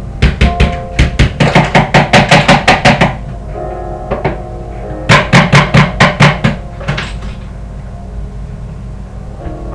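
Rapid sharp knocking in two runs, about five strikes a second, the first run about three seconds long and the second shorter, about five seconds in. Classical piano music plays in the background.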